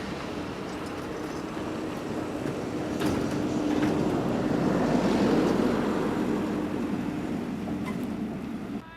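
A motor vehicle running past, with a steady hum over engine and road noise that swells to a peak around the middle and eases off, then cuts off abruptly near the end.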